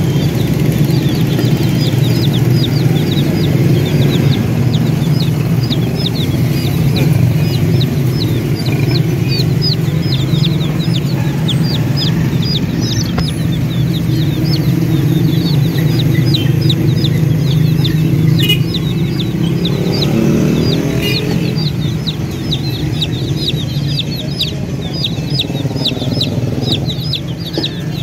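A flock of baby chicks peeping nonstop, a dense stream of short, high, downward-sliding peeps, several a second, over a steady low hum.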